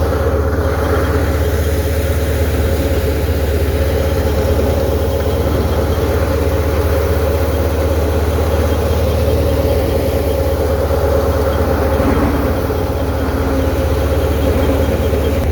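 Tractor's diesel engine running at a steady speed: a constant low hum that holds its pitch throughout.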